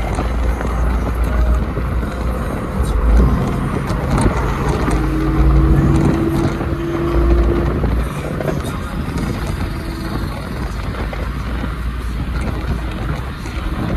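BMW 1 Series convertible cruising at speed with the roof open: the running of its N54 twin-turbo straight-six mixed with tyre roar and low wind buffeting. A faint steady engine tone holds for a few seconds around the middle.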